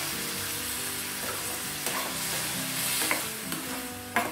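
Onions and tomatoes sizzling in a frying pan, with a metal spatula stirring and knocking against the pan a few times, the loudest knock near the end.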